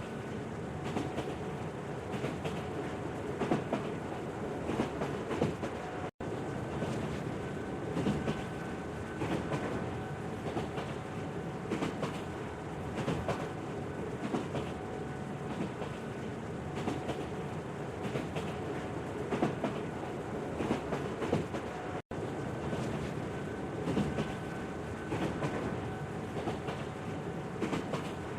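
Train running on track: a steady rumble with clickety-clack of wheels over the rails and a faint held whine. It drops out for an instant twice.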